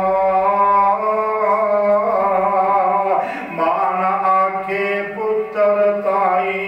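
A man chanting a Punjabi verse in long, drawn-out held notes, the pitch sliding between them, with a short break about three seconds in.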